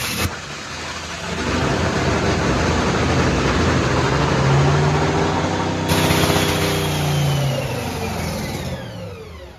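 Top Fuel dragster's supercharged, nitromethane-burning V8 running loudly in a pit warm-up. The revs swell and ease in the middle, and the engine winds down, its pitch falling away as it shuts off near the end.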